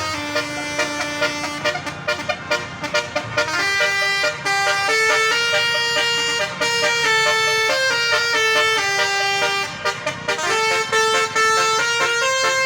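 Basuri telolet bus horn playing a melody of held notes that step up and down in pitch, with quick stuttering toots about two seconds in and again about ten seconds in.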